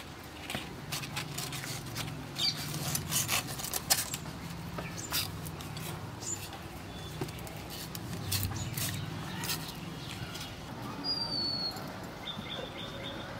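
A calf eating dry feed: a run of crisp crunching clicks, thickest in the first six seconds, over a low steady hum. A short high chirp sounds near the end.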